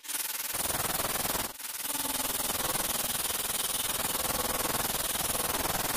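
Angle grinder running, its disc grinding through a piece of ceramic tile, with a brief let-up about a second and a half in.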